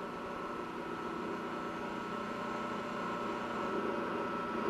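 Bench grinder running steadily while a tungsten welding electrode is held against its grinding wheel, growing slightly louder over the few seconds.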